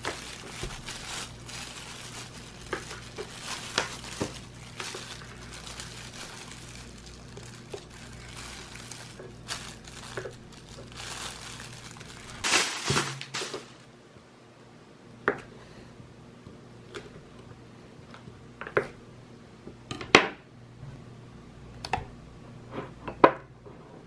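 Disposable plastic gloves crinkling as hands handle blood sausage on a wooden cutting board. In the second half a knife slices it, with separate sharp knocks on the board every second or two.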